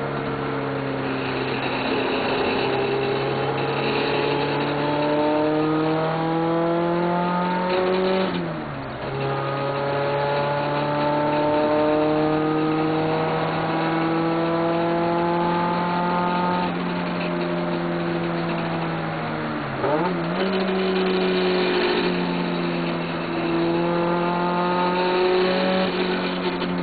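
Toyota 86's engine pulling under load, its note climbing steadily through the revs, with two upshifts about eight and twenty seconds in where the pitch drops and starts rising again. The run carries an abnormal noise that the owner cannot trace; the linkages have been checked and found fine.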